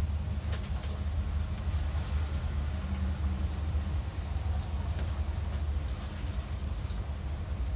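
PEX tubing being pushed into a SharkBite push-fit connector: a few faint clicks, and a thin high squeal of plastic about four seconds in that lasts a couple of seconds. A steady low machine hum runs underneath.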